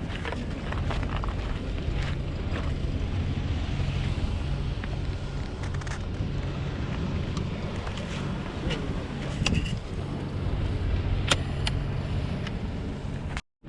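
A motor vehicle engine running steadily with a low hum, with scattered light clicks and knocks over it.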